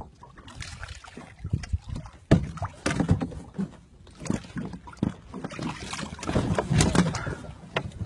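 Irregular knocks, bumps and rustles as a fish is grabbed from the water and hauled into a small inflatable boat, with a heavy thump about two seconds in.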